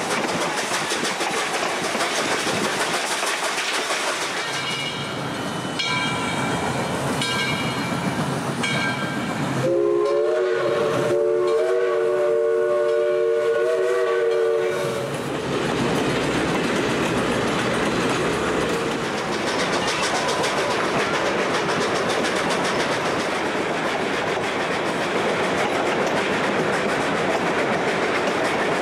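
Lionel O scale model freight train running on tubular three-rail track with a steady rattle. About five seconds in, a train whistle gives several short toots, then one long chord-like blast of about five seconds.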